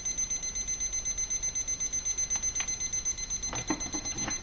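Digital probe thermometer's alarm beeping rapidly and steadily, signalling that the water has reached 212°F, the boil. A few light knocks come in the second half.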